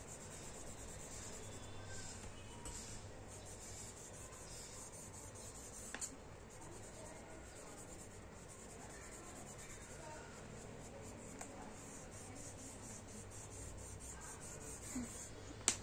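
Faint rubbing of a soft pastel stick across sketchbook paper in repeated strokes, with a light tap about six seconds in and another at the end.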